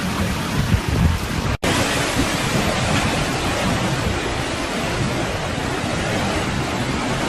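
Steady rushing noise of typhoon wind and surf, with a brief cut-out about one and a half seconds in.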